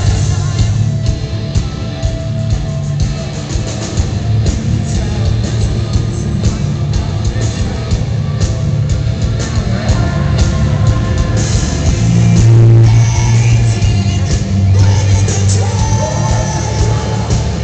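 Live rock band playing loud with singing, heard from within the audience in a large hall, heavy bass dominating the mix.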